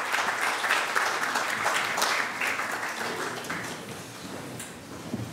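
Congregation applauding, a dense patter of many hands clapping that thins out and dies away over the last couple of seconds.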